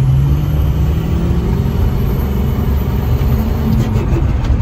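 A 2003 Ford King Ranch pickup on the move, heard from inside the cab: a steady engine and road rumble, with the engine note climbing slowly in pitch through the middle.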